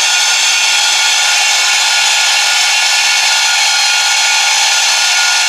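Power drill running steadily at full speed, boring a hole through a cast-iron brake drum.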